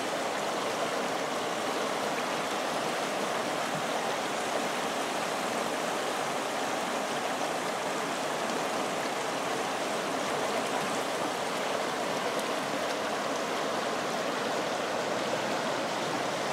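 Clear, shallow river water running fast over a stony riffle: a steady rushing and babbling that does not change.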